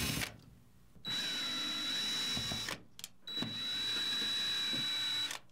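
Cordless drill with a Phillips bit backing out control board mounting screws, its motor running in two steady bursts of about two seconds each, with a short pause between, each carrying a constant high whine.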